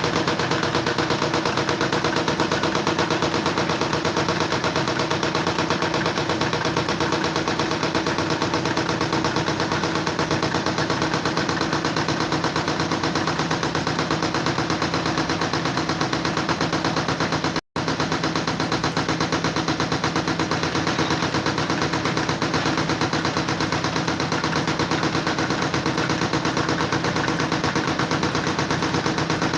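A steady, very rapid mechanical rattle with a low hum under it. It cuts out for an instant about two-thirds of the way through.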